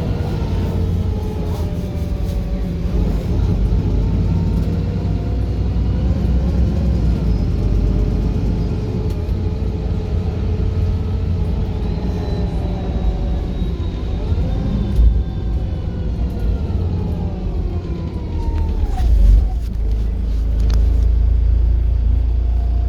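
Wright Pulsar single-decker bus heard from on board while moving: a steady low engine rumble with a whine that slowly rises and falls in pitch, and a few sharp clicks.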